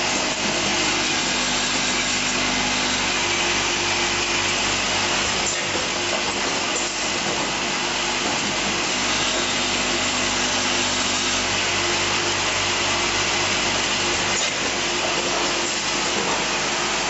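Automatic assembly and riveting machine running: a steady mechanical noise with a constant low hum and a few faint clicks.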